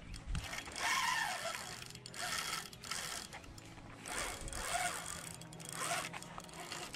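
Spinning fishing reel cranked in short spurts as a lure is retrieved, a whirring, rattling wind of the handle and rotor.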